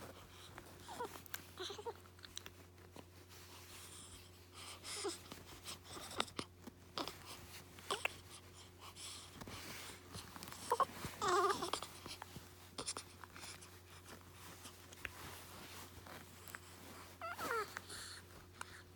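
A baby's short fussy whimpers and little vocal sounds, four times, the loudest about eleven seconds in, with small clicks between them over a steady low hum.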